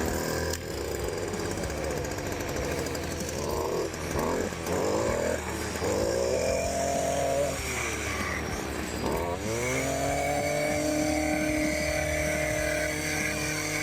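STIHL FC 56 C edger's small two-stroke engine started on full choke, catching on the first pull and running. Its revs rise and fall, sag about two-thirds of the way through, then climb again and hold high.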